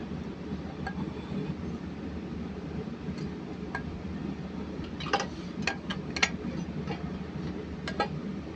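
Metal engine parts and hand tools clinking and knocking together during rocker arm work: scattered sharp clinks, then a quick cluster of them about five to six seconds in and one more near the end, over a steady low hum.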